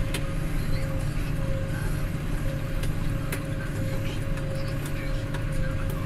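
John Deere 6140M tractor's diesel engine running steadily under load while pulling a disc harrow through soil, with a few sharp clicks.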